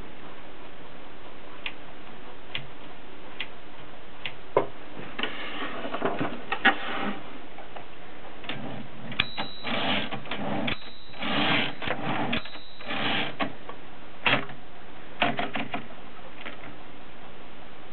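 Mercedes K45 typewriter being worked: scattered single mechanical clicks, with denser stretches of clattering a few seconds in and again through the middle.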